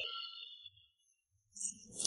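Near silence: a short fading tail of the preceding sound dies away in the first half-second, followed by about a second of dead silence and a faint blip near the end.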